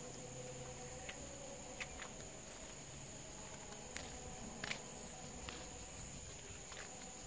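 Faint scattered footsteps with a few short clicks, over a steady high-pitched insect drone.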